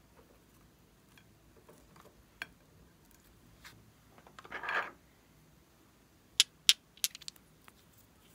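Small plastic cosmetic containers handled over a slime bowl: faint taps, a brief rustling scrape midway, then a quick run of sharp plastic clicks about two-thirds in as a small clear case is snapped open.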